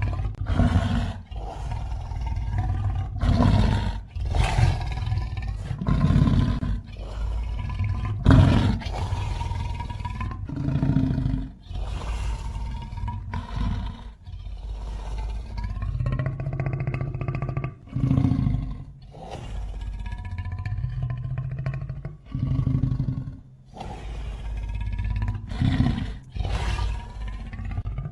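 Layered monster roars and growls, mixed from animal recordings such as lion, grizzly bear and elephant with film creature sounds. They come as a string of separate one-to-two-second bursts, many cut off sharply, with a deep rumble under a pitched, wailing tone.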